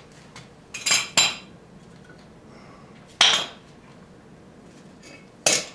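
Metal tools and brake parts clinking as they are handled at a Jeep's front wheel hub during a brake job: a few sharp clinks about a second in, another at about three seconds, and one near the end.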